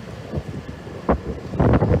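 Wind buffeting the microphone on a rooftop in gusts, with a short blast about a second in and a louder run of blasts in the second half.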